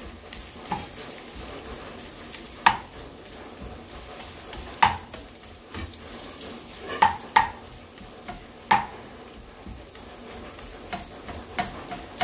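Masala-coated shrimp sizzling in oil in a frying pan while being stirred with a steel spoon, which clinks sharply against the pan about five times.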